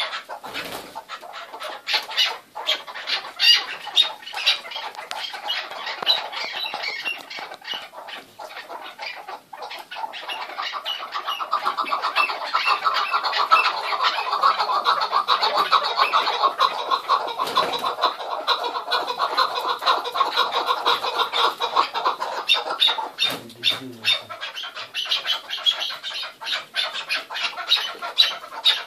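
Chukar partridges calling loudly with sharp, repeated calls. About ten seconds in, the calls run together into a fast, unbroken stream for roughly twelve seconds, then break up into separate sharp calls again.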